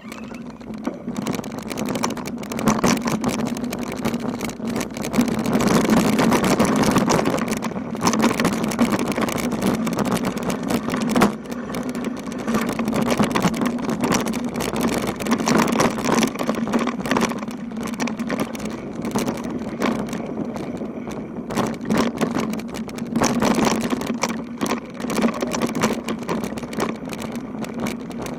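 Steady road noise: a low, even hum under a rushing noise that swells and fades.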